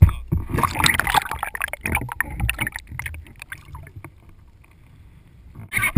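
Sea water splashing and sloshing against a kayak right by the microphone, in irregular slaps. It is loudest in the first few seconds, dies down to a low wash, then picks up again just before the end.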